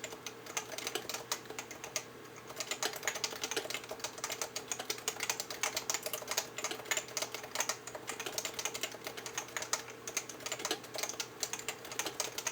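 Typing on a Leopold FC660C compact keyboard with 45 g Topre electrostatic capacitive switches, not yet lubricated: a fast, uneven run of keystrokes with a brief pause about two seconds in.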